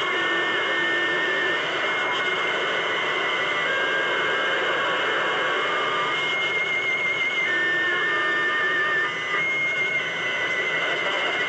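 CB radio receiver on channel 28 putting out a steady hiss of band noise and static between transmissions, with faint wavering whistles that come and go, from other stations' carriers during a skip (DX) opening.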